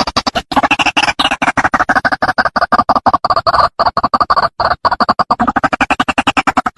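White-breasted waterhen calling: a loud, unbroken run of rapid harsh clucking notes, about eight to ten a second, with a few brief breaks. The pitch lifts about a second in and settles back over the following seconds.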